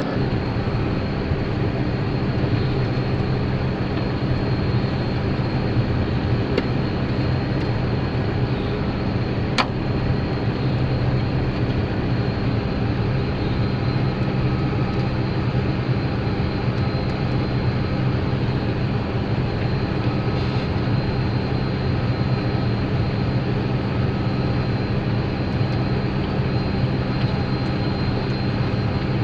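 Potato harvester (digger) and its machinery running steadily while loading potatoes into a truck: a constant low mechanical drone. One sharp click comes about ten seconds in.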